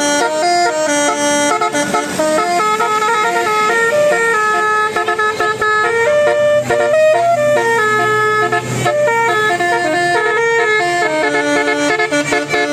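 A multi-tone musical vehicle horn playing a tune of held notes that step up and down in pitch.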